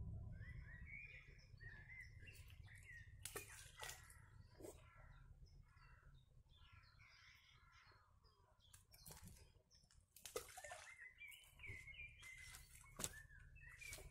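Faint songbird chirping in short bursts, with a few sharp clicks or knocks scattered through.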